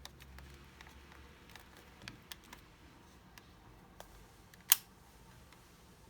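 Sony DCR-HC17 Mini DV camcorder being handled, with scattered light plastic clicks and one sharp click about three-quarters of the way through.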